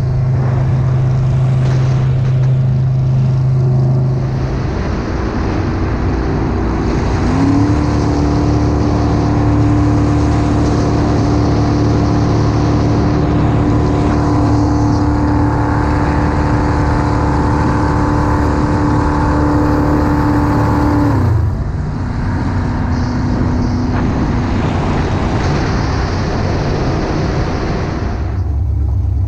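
Jet boat's crate 454 big-block V8, with a Berkeley JC jet pump, running underway over wind and water rush. It runs steady at low speed, is throttled up about seven seconds in, holds the higher revs steadily, then eases back off a little past twenty seconds in.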